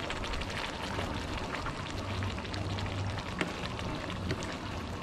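Mala stir-fry of noodles, cabbage and meat sizzling and crackling in a wok over a gas flame, with a metal spatula stirring and scraping through it. The crackle is a steady patter of fine rapid pops.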